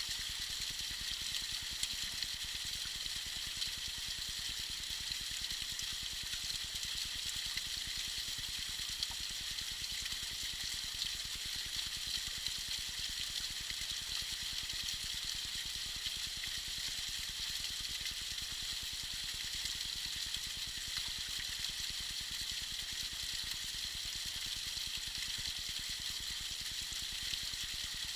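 Tiny waterfall splashing and trickling steadily, a bright even rush with little low rumble.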